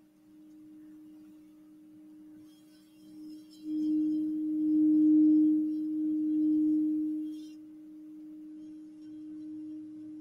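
Crystal singing bowl sounding one steady, low-pitched ringing tone as a wand is rubbed around its rim. About three and a half seconds in, the tone swells much louder, with a faint rubbing hiss from the wand, then eases back down after about four seconds.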